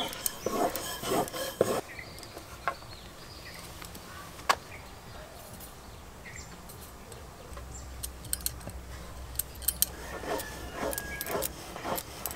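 Light handling sounds of thin rolled dough rounds being lifted, laid on a wooden board and brushed with oil: soft rustles and small clicks, with one sharp click about four and a half seconds in and a quiet stretch in the middle.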